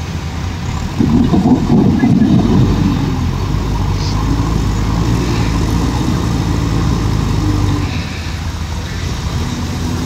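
JCB 4DX backhoe loader's diesel engine running as the machine moves about. It gets louder about a second in and eases off near the end.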